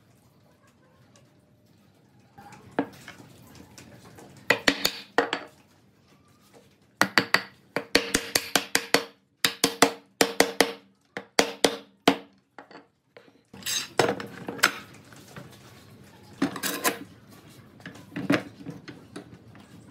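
A quick series of sharp, ringing hammer taps knocking a pine rail down onto table legs, with scattered knocks and metallic clanks of steel pipe clamps being handled near the end.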